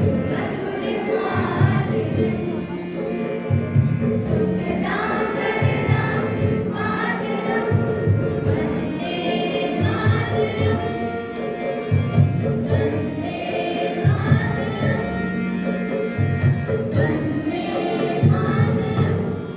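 A group of voices singing a devotional song with instrumental and percussion accompaniment.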